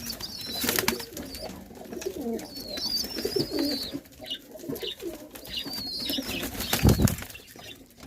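Fantail pigeons cooing in a loft, with thin high chirping calls over the low coos and a loud thump about seven seconds in.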